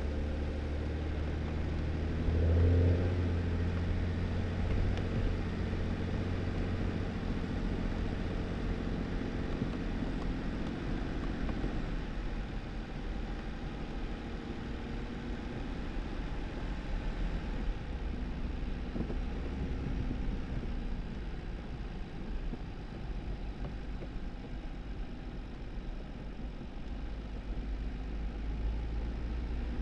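2018 Jeep Wrangler driving on a snowy dirt road: the engine running steadily under tyre and road noise, with a brief louder bump about three seconds in. The engine sound eases and the drive gets quieter about twelve seconds in.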